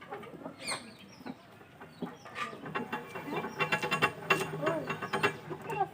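Chickens clucking: a quick run of short clucks that grows busier and louder from about two seconds in.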